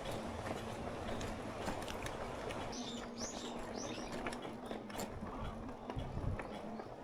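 A bird calling a quick run of about five short chirps, over steady background noise with a faint low hum.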